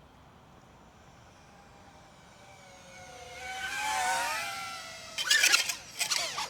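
Quadcopter drone's propellers whining as it flies in close, growing louder with the pitch bending as it passes. About five seconds in comes a clatter of sharp knocks as it crashes into a tree, splitting a propeller and bending an arm.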